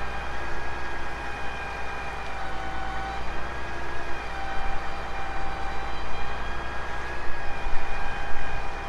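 Heavy diesel engine running steadily under a low rumble, with a high whine that shifts pitch in small steps now and then.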